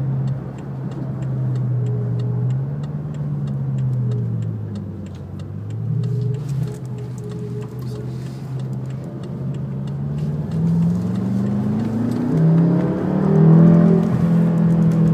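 Car engine heard from inside the cabin while driving. Its pitch dips about four seconds in, then rises steadily near the end as the car accelerates.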